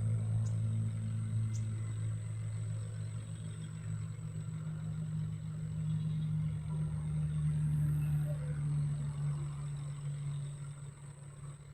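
Hitachi excavator's diesel engine running steadily with a low hum, dropping away near the end.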